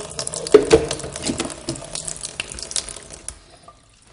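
Water tap running and splashing, with sharp clicks and knocks, the flow dying away about three seconds in.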